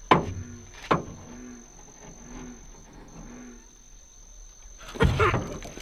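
A frog calling with a run of short, low notes. A steady high insect trill runs behind it. Two sharp knocks sound in the first second, and a louder burst of noise comes near the end.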